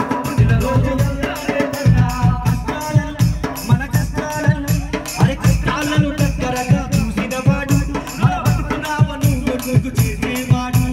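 Live Telugu folk song: a singer through a microphone over a large stick-beaten drum keeping a fast, steady beat, with a rattling percussion layer on top.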